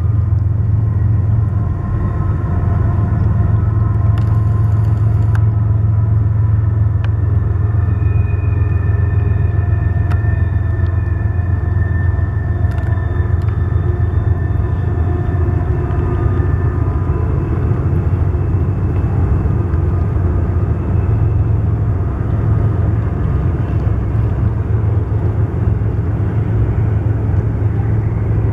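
CSX freight train rolling past, its string of freight cars making a steady low rumble on the rails, with faint drawn-out squeals in the first half.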